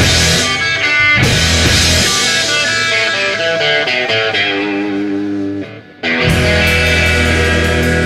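Recorded garage rock with electric guitar. About two seconds in the full band drops away, leaving picked guitar notes that fade to a brief gap. Just after that a sustained chord comes in and rings on.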